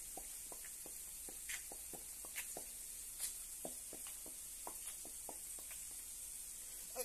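Light footsteps on a hard floor, with small taps from the handheld phone, over a faint steady hiss.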